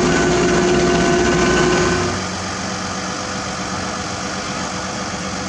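Diesel engine of heavy road-paving equipment running with a steady note. About two seconds in, the sound drops suddenly to a quieter, lower steady engine hum.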